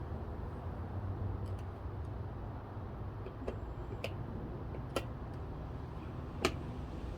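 A few light, sharp clicks and taps of small screws and hand tools being handled during a doorbell installation, the loudest about six and a half seconds in, over a steady low rumble.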